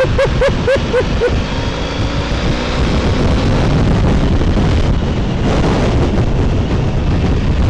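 Gale-force wind buffeting the camera microphone on a moving Honda motorbike, a dense rumbling rush of wind noise with the bike's engine running underneath.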